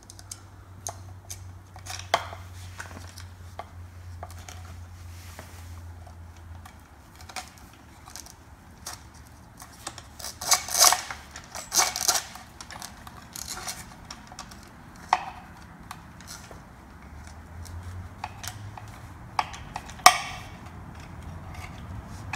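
Scattered light clicks and taps of small parts, thin wire and a halo ring, being handled against a plastic headlight housing, with a busier run of clinks about eleven to twelve seconds in and one sharp knock near the end.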